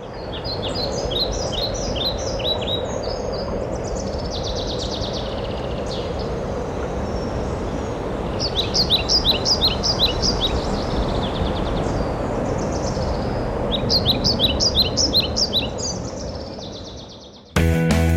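A songbird singing phrases of quick, high chirps again and again over a steady noisy outdoor background, which fades away; near the end, rock music with guitar starts abruptly.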